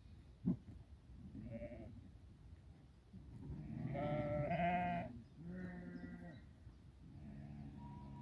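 Sheep bleating, a run of long calls about a second each, the loudest about four seconds in where two overlap. A short sharp click comes about half a second in.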